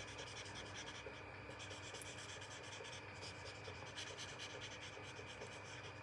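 Faint sound of a Stampin' Blends alcohol marker, the light shade, scrubbed over a small piece of cardstock in short, repeated strokes as the colour is blended in.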